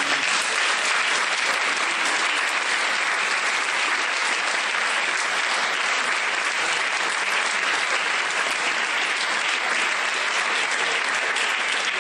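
An audience applauding steadily, a dense sustained clapping that neither swells nor fades.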